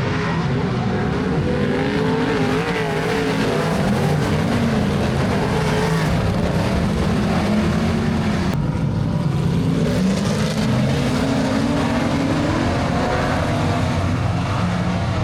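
Several speedway race car engines running and revving together, their pitches wavering up and down.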